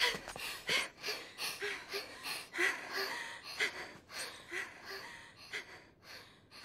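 Two young women panting hard and out of breath, quick gasping breaths at about three a second, some with a slight voiced catch, growing fainter toward the end.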